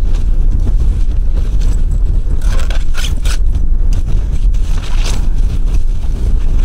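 Wind buffeting the microphone with a steady low rumble. Over it come short bursts of rustling and scraping, about two and a half to three and a half seconds in and again near five seconds, as a heavy cloth bag is handled.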